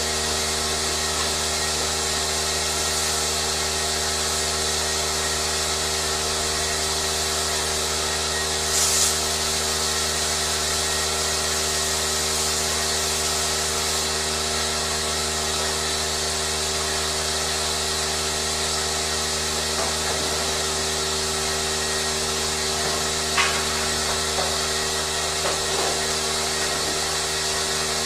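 Steady mechanical hum and hiss of running machinery, with a brief louder swish about nine seconds in and a sharp knock later on.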